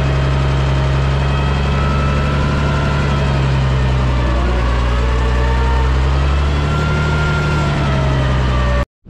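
Farm loader tractor's engine running steadily, heard from inside the cab, a low hum holding an even pitch. It cuts off suddenly just before the end.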